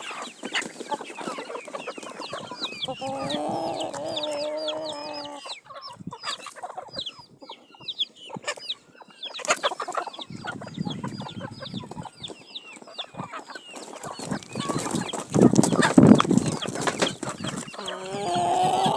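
A flock of chickens at feed, many high short peeps overlapping with clucking, and one drawn-out call about three seconds in. A louder burst of noise comes about fifteen seconds in.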